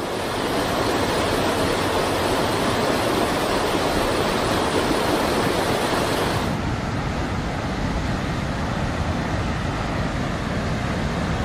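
Steady rushing of muddy floodwater pouring in sheets off the edge of a highway bridge. About six and a half seconds in the sound changes abruptly to a duller rush, the churning of a swollen flood river.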